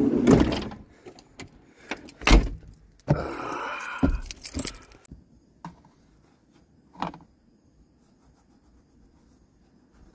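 Knocks, rattles and rustling as someone climbs into a small car and handles the door and bedding. The sounds stop abruptly about five seconds in, and after that it is quiet but for two soft clicks.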